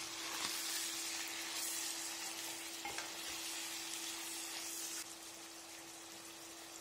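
Pieces of lamb belly sizzling in hot rendered beef fat in a deep frying pan over high heat, stirred with a wooden spatula. The sizzle eases a little after about five seconds.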